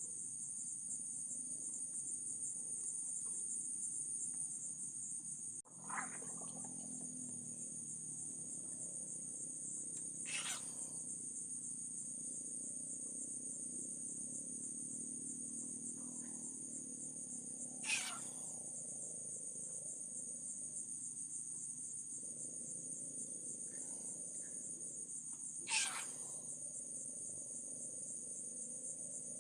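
Steady night chorus of crickets and other insects, a constant high-pitched trill. Three short, sharp sounds stand out about eight seconds apart, the first some ten seconds in.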